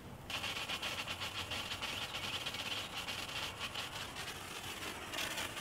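Stream of water hissing steadily out of the nozzle of a stainless steel water fire extinguisher that has been pressurized with compressed air, starting just after the opening moment, with a brief sharper spurt near the end.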